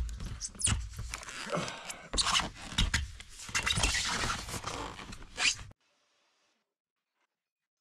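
Scraping, rustling and light knocks of hands and a rag working over sheet-metal stovepipe flashing on a corrugated metal roof. It cuts off suddenly to silence about five and a half seconds in.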